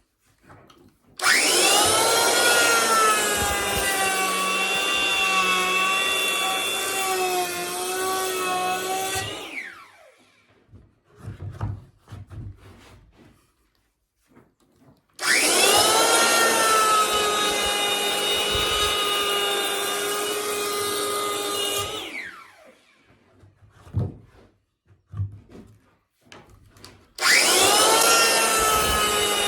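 Makita curved-base electric hand planer run three times, shaving a square wooden beam round. Each run starts with a rising whine and holds a steady whine over the shaving noise. The first two wind down with a falling whine, and a few short knocks fall between the runs.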